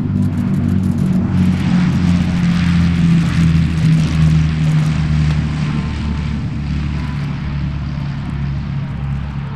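De Havilland Mosquito's twin Rolls-Royce Merlin V12 engines at takeoff power as the aircraft accelerates down the runway. Loudest as it passes about three to four seconds in, the pitch dropping slightly, then slowly fading.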